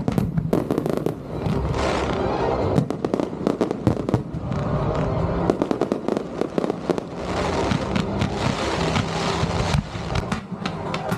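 Fireworks display: many aerial shells bursting close together, a dense run of sharp bangs that thickens about five and a half seconds in.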